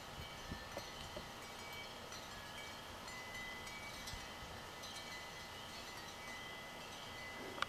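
Faint, steady background hiss of quiet outdoor ambience, with a few faint short high-pitched tones now and then and a couple of soft ticks in the first second.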